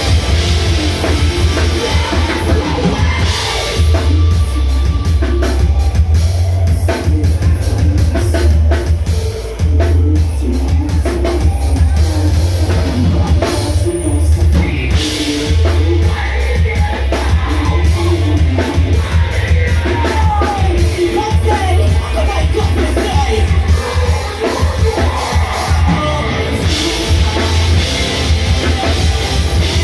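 Live rock band playing loudly: a drum kit, guitar and a vocalist singing into a microphone, with a heavy, metal-leaning sound.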